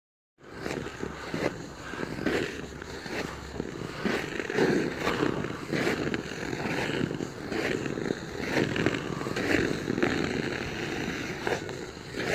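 Ice skate blades scraping and gliding over frozen lake ice, one stroke about every second, with small sharp ticks from the blades.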